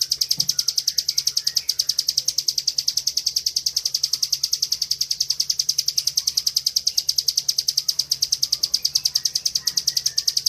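Bar-winged prinia (ciblek) singing its 'ngebren' song: high notes repeated very fast, about eight a second, in one unbroken run.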